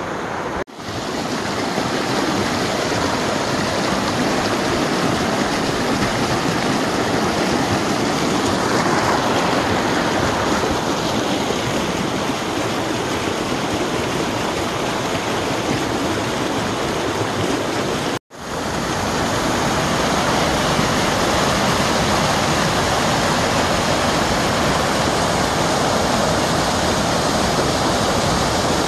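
Mountain creek rushing over rocks: a steady wash of splashing white water, fuller after about two-thirds of the way in as a small cascade tumbling over rocks and logs comes close. The sound cuts out for an instant twice, just after the start and about two-thirds through.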